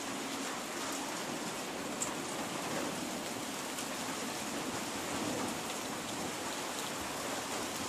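Steady rain falling, an even hiss with a single small tick about two seconds in.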